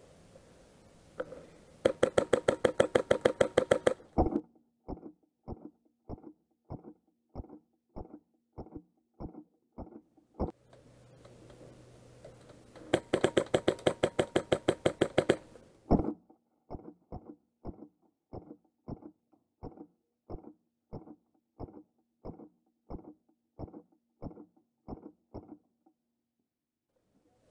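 Airsoft rifle firing two full-auto bursts of about ten shots a second, each lasting two to three seconds. Each burst is followed by a slow, even run of single knocks, about two a second.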